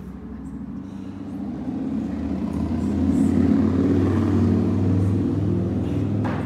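Low engine rumble of a passing motor vehicle, swelling to its loudest about halfway through and then fading away.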